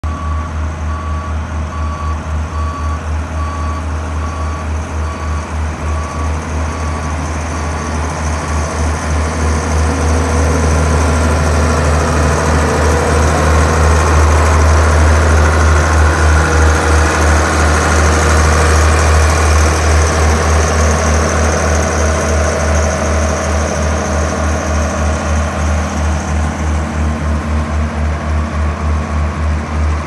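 Dynapac padfoot vibratory soil compactor's diesel engine running with a heavy, evenly pulsing low throb, swelling louder through the middle as the machine comes close. An intermittent reverse-warning beeper sounds for the first several seconds.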